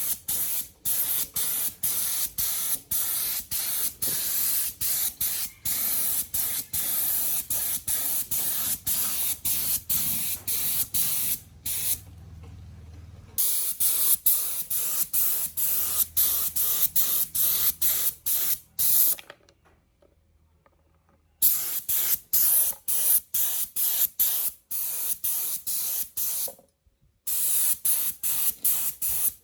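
Spray hissing in many short, rapid bursts, stopping briefly two or three times.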